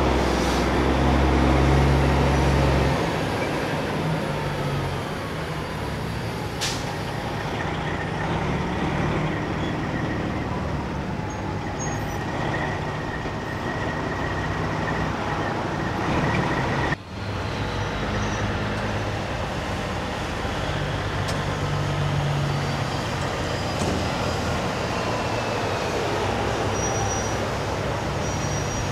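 Semi trucks' diesel engines running as the trucks roll slowly past, with traffic noise, loudest in the first few seconds.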